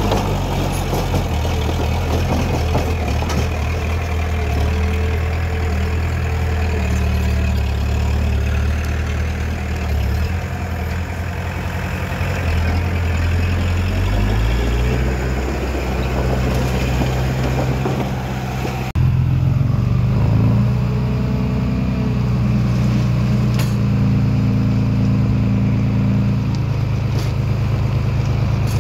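Heavy diesel engine of an earthmoving machine running under work, its note shifting in pitch as the load changes, with an abrupt change in the sound about two-thirds of the way through.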